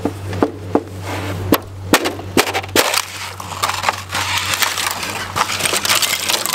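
Ice on a galvanized stock-tank water trough cracking and crunching as a boot stamps down through it. Several sharp separate cracks come first, then from about three seconds in a steady crackle and crunch of breaking ice.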